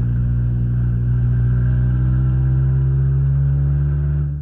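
2001 Honda Civic's four-cylinder engine running steadily, just brought back to life on a jump start after repeatedly dying. Its pitch rises slightly about halfway through.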